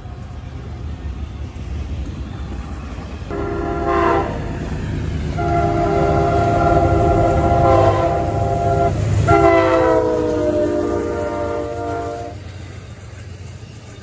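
Diesel locomotive air horn sounding three blasts: a short one about three seconds in, then two long ones, the last sliding lower in pitch. Under it runs the low rumble of the passing train.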